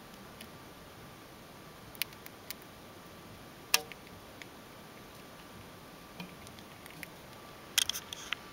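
Small sharp clicks and crunches, a few seconds apart, from a Russian winter white dwarf hamster chewing corn. Near the end comes a quick cluster of louder clicks and knocks.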